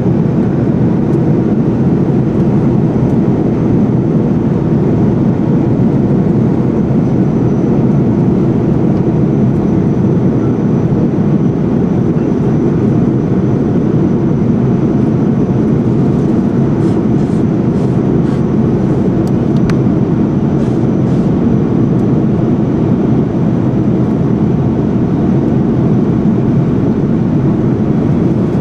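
Steady airliner cabin noise in flight: the even rush of airflow and engines, with a few faint ticks about two-thirds of the way in.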